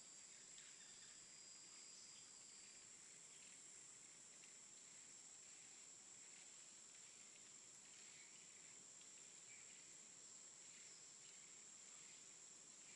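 Near silence: faint room tone with a steady, high-pitched whine.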